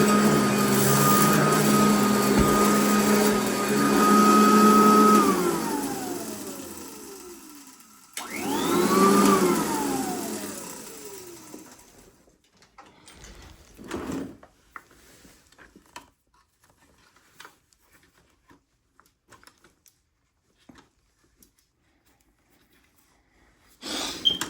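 Royal vacuum cleaner motor running with a steady whine, then switched off about five seconds in, its pitch falling as it spins down. It is briefly switched on again around eight seconds and spins down once more, followed by a few faint knocks and handling sounds.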